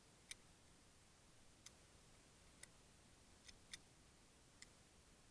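Six faint, sharp clicks from airsoft guns at irregular intervals, over near silence.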